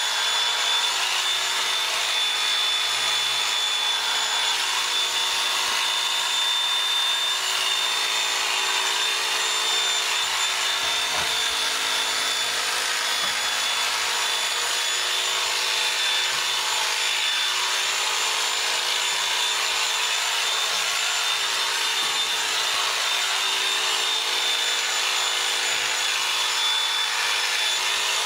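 Electric sheep-shearing handpiece running steadily, a hum with a thin high whine over it, as it shears wool off a sheep.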